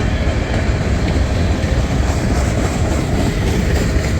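Freight cars of a long mixed freight train rolling past close by: a steady, loud rumble of steel wheels on rail with scattered clicks over the rail joints.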